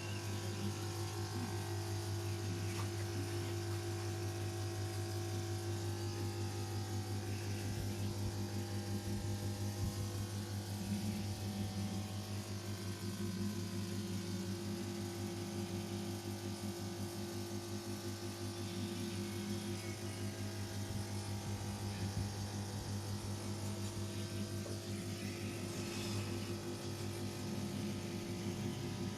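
A steady low hum, even in pitch and level, with faint irregular sounds over it.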